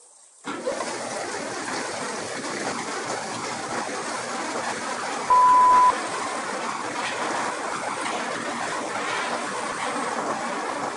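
Kadıoğlu Nutmec 180E walnut peeling machine switched on, starting suddenly about half a second in and then running steadily with a dense churning rush of walnuts tumbling with water. A loud single beep, about half a second long, sounds about five seconds in.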